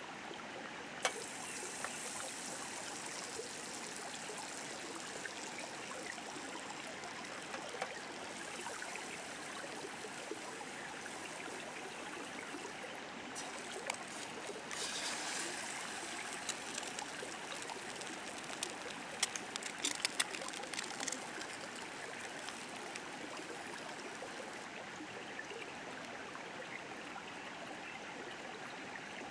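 A river flows steadily under a frying pan on a portable gas stove, sizzling with hot fat. About halfway, an egg is cracked into the pan and sets off a louder burst of sizzling. A few sharp clicks of metal tongs follow.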